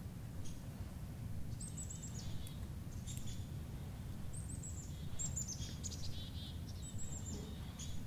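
Black-capped chickadee calling several times, each call a few short high notes followed by lower notes. Behind the calls is a low steady background rumble.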